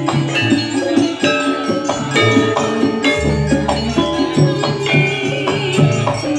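Javanese gamelan ensemble playing jathilan music: kendang drums, metallophones and gongs in a steady, dense beat of ringing struck notes, with a deep low note sounding about three seconds in.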